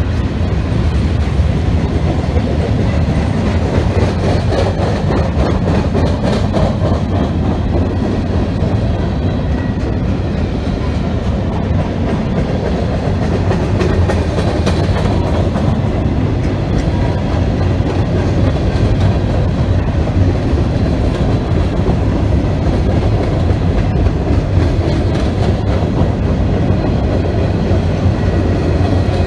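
Freight train cars rolling past close by: a steady, loud rumble of steel wheels on rail, with clickety-clack as the trucks cross the rail joints. The train is a mixed consist of coil steel cars, covered hoppers and tank cars.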